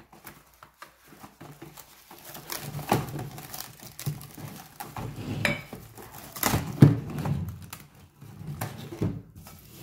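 Plastic cling wrap crinkling and crackling as it is stretched and pressed down over a glass mixing bowl, with scattered light taps against the bowl; the loudest crackle comes a little before seven seconds in.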